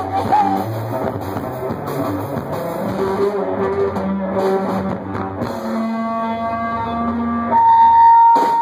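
A rock band playing live, electric guitar over a drum kit, with a long held high note coming in louder near the end.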